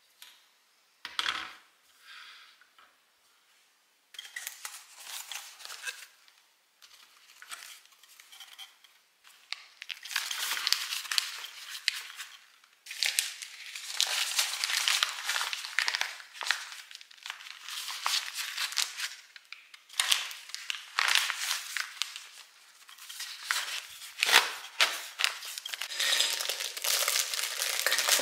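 Plastic and paper food packets crinkling and rustling in irregular bursts as they are handled and packed into wire baskets, busier in the second half, with a light knock about a second in.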